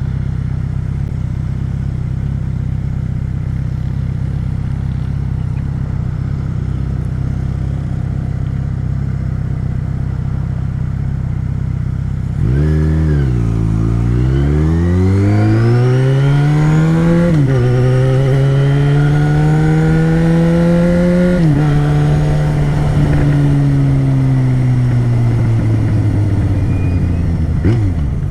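Yamaha XJ6 600cc inline-four motorcycle engine running steadily at low revs, then pulling away about halfway through, revving up with two gear changes before easing off and cruising with the revs slowly falling; a short blip near the end.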